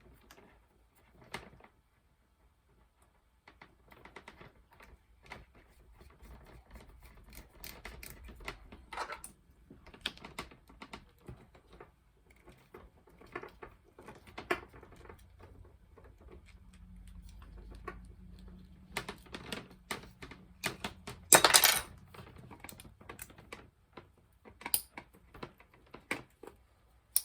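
Irregular small clicks, taps and rattles of plastic and metal MC4 connector parts being handled and assembled, with a louder cluster of clicks about 21 seconds in.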